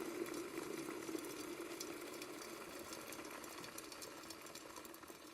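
Water boiling in an electric kettle: a low rumble with a sizzling hiss that slowly fades away.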